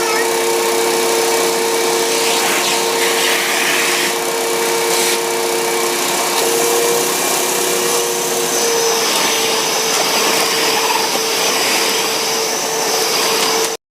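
Hoover WindTunnel self-propelled bagless upright vacuum cleaner running steadily, a continuous motor hum and airflow rush whose pitch shifts slightly partway through. The sound cuts off suddenly near the end.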